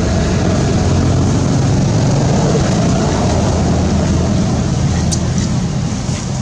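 A steady low engine hum over a broad hiss, with no rise or fall. A few faint high clicks come about five seconds in.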